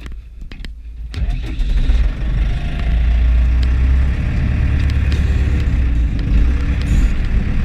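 Deutz DX 4.70 tractor's air-cooled four-cylinder diesel heard from inside the cab: a low idle at first, then about a second in the engine picks up as the tractor pulls away, and it runs steadily and loudly under load.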